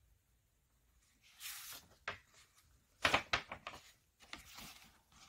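A page of a hardback picture book being turned by rubber-gloved hands: a paper swish about a second and a half in, a few sharp rustles and taps around three seconds as the page is laid and smoothed flat, and a softer rustle near the end.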